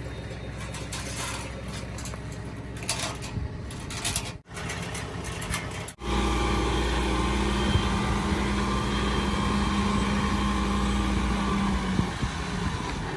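A vehicle engine running steadily under wind noise on the microphone. The sound breaks off twice in quick succession about four and six seconds in, after which the engine hum is louder and steady.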